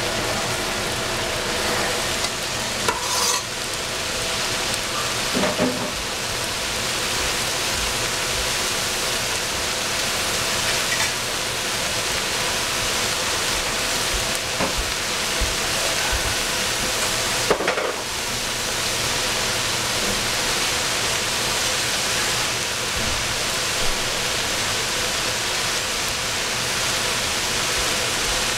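Purple cabbage, purple onion and cranberries sizzling in a frying pan with a steady hiss. A utensil stirring in the pan clicks a few times.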